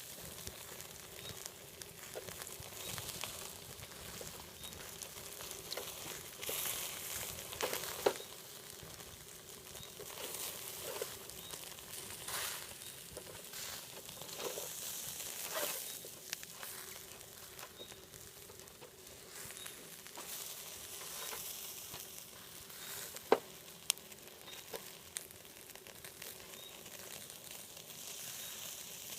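Food sizzling on a barbecue grill: a steady hiss with scattered crackles and a few sharp pops, the loudest about 8 and 23 seconds in.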